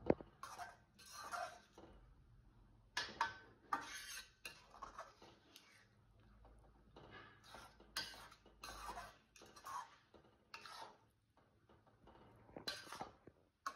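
A metal ladle stirring thick egg gravy in a metal kadai: one sharp clink of ladle on pan at the start, then a string of short, soft scraping strokes against the pan.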